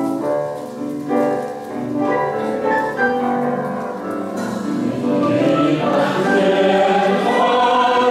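A group of voices singing a hymn together as a choir. The singing grows fuller and louder about halfway through.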